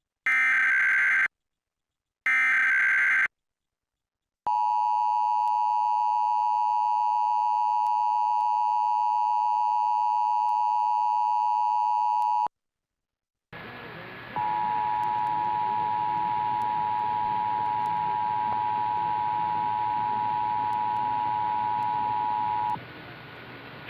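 Emergency Alert System test tones. First come the last two of the three digital SAME header bursts, each about a second long. Then the steady two-tone EAS attention signal is held for about eight seconds. After a short silence a steady hiss starts, and a second two-tone attention signal sounds over it for about eight seconds, stopping shortly before the end.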